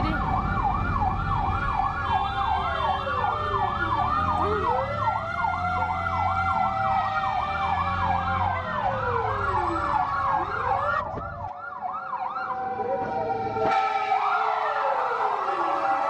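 Several fire-truck sirens sounding together: a fast yelp warbling about three times a second over slower rising and falling wails. A vehicle engine rumbles underneath until it drops away about eleven seconds in.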